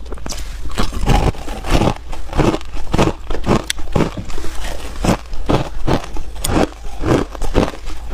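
A person chewing hard ice cubes, a steady run of loud, sharp crunches about twice a second.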